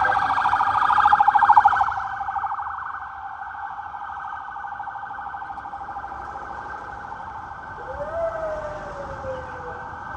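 Emergency-vehicle siren with a fast warble, loud for about the first two seconds and then softer and steady, with a second falling tone near the end.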